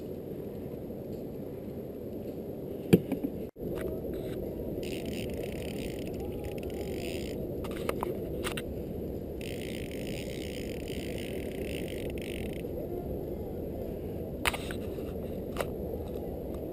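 Small outboard motor on a fishing boat running steadily at low speed, heard muffled, with a few sharp clicks and knocks from handling gear.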